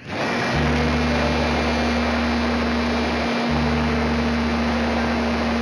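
Steady wind rush with the hum of the electric motor and propeller of a small homemade radio-controlled airplane in flight, picked up by a cheap onboard camera's microphone.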